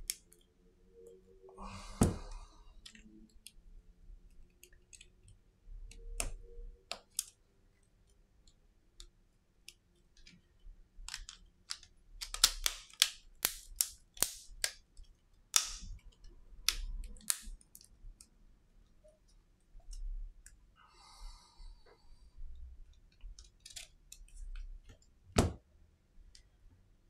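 A run of sharp plastic clicks and taps as a partly disassembled Samsung Galaxy A51 smartphone is handled, thickest in the middle stretch, with a louder knock about two seconds in and another near the end.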